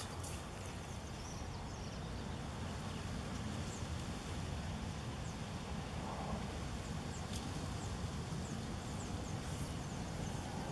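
Outdoor lakeside ambience: a steady low rumble and hiss, with faint, short, high-pitched bird chirps now and then.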